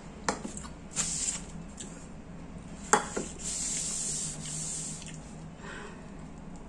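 Mouth sounds of someone eating crispy fried banana fritters, with a few light clicks, a sharp tap about three seconds in and a short rustle just after it.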